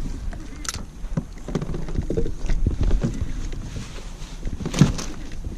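Irregular light knocks and bumps of handling in a kayak, with wind on the microphone; a sharper click comes under a second in and a louder knock near the end.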